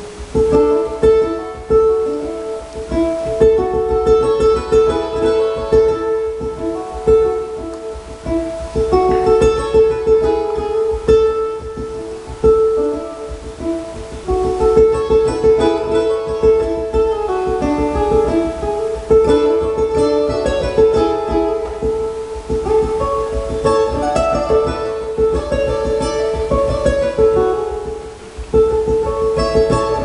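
Ukulele picking a quick instrumental melody, with a cello holding long sustained notes beneath it.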